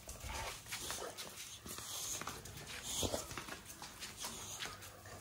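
A boxer and a small black-and-white dog moving about on a tiled floor, their claws clicking on the tiles, with a few soft dog noises.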